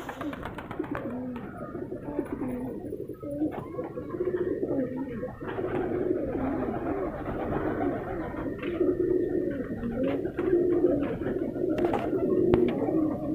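Domestic pigeons cooing: several overlapping, rolling coos repeating one after another.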